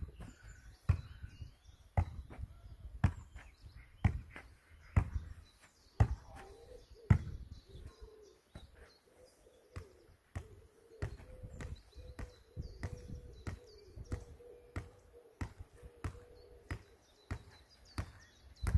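Volleyball being struck over and over, kicked and bumped off the forearms, a dull thud about once or twice a second, with birds chirping in the background.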